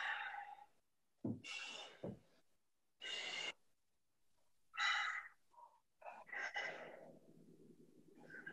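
A man breathing hard in short, separate breaths, about six in all, each a second or so apart, while holding a strained stretch.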